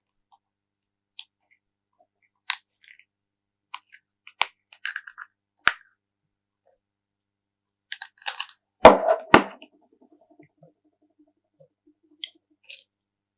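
Slime being handled: scattered sticky clicks and crackles, with the loudest pair of crunchy pops about nine seconds in.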